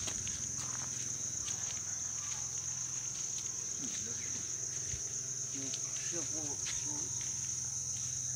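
Insects in the forest canopy keep up a steady high-pitched buzz without a break.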